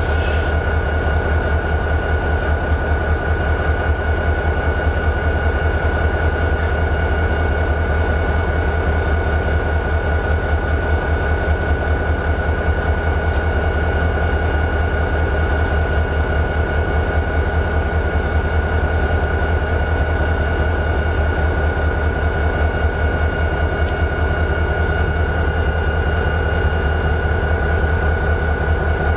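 EMD 645 diesel engine of a CSX GP40-2 locomotive idling: a steady, evenly pulsing low rumble with a constant high-pitched whine over it.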